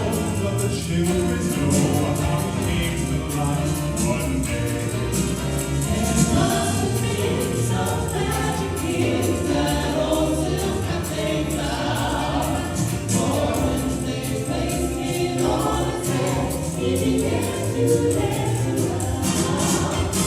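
A choir singing a Christmas carol with musical accompaniment, without a break.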